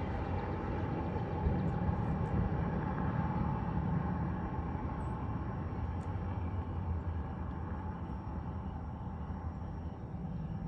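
Steady low rumble of a road vehicle running close by, easing slightly near the end.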